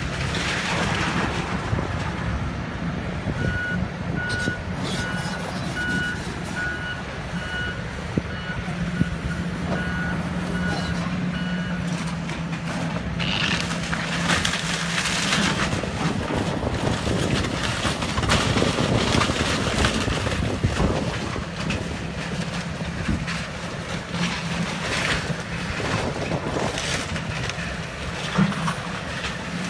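Hitachi hydraulic excavator's diesel engine running steadily while it demolishes a timber-framed building. A backup alarm beeps about twice a second from a few seconds in until about halfway, and crashes and crunches of breaking timber and debris come through the second half.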